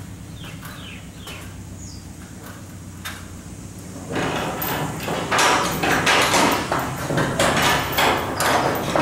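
Metal rigging hardware clanking and rattling against an overhead steel beam: a few faint clicks, then from about four seconds in a louder run of irregular metal knocks, several a second.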